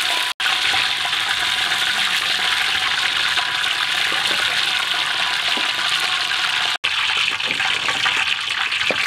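Hot oil being poured over a whole chicken hung above a wok, a steady loud sizzle and splatter as the oil streams off the skin and back into the pan. The sound cuts out abruptly for an instant twice.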